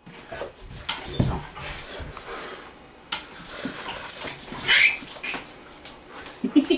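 A dog whimpering and panting, mixed with short bumps and rustles.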